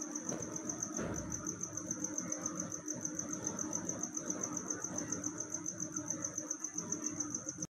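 Hand file rasping on a lead-acid battery's lead terminal post, with a steady, rapidly pulsing high-pitched trill running under it. The sound cuts off abruptly near the end.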